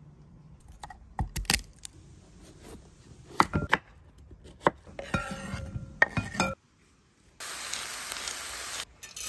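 A knife knocking sharply through winter squash onto a wooden cutting board, several separate strikes. Near the end, about a second and a half of steady sizzling as diced vegetables fry in a pan.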